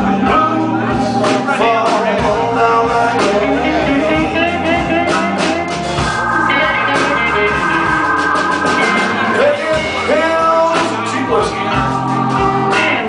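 Live blues band playing, with guitar prominent and notes that glide up and down over a steady beat.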